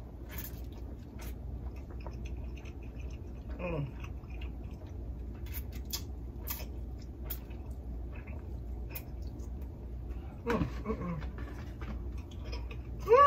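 Close-miked eating of shrimp and spicy ramen: chewing with lip smacks and wet clicks. A few short gliding pitched sounds come through, the loudest near the end.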